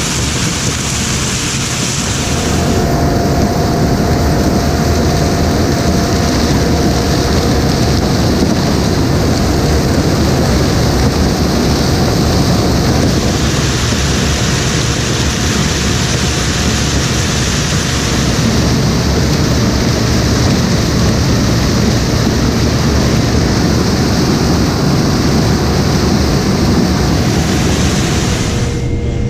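Corn combine running steadily while harvesting: a dense, even rush of engine and machinery noise that shifts in tone a few times.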